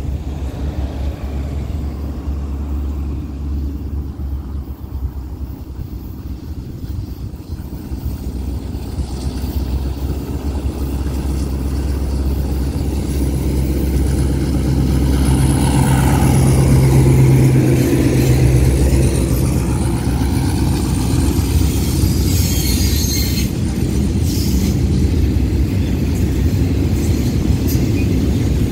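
Alstom diesel-electric locomotive hauling a container freight train comes toward the listener, its engine rumble growing louder until it passes about halfway through with a strong low hum. The container wagons then roll past with a steady rumble and clicking wheels over the rail joints.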